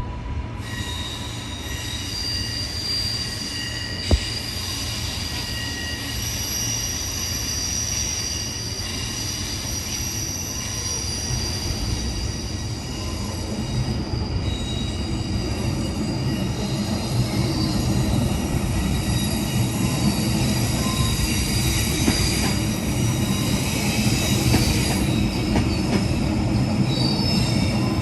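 Suburban passenger train moving through a station, its wheels squealing in several steady high tones over a low rumble that grows louder in the second half. A single sharp click about four seconds in.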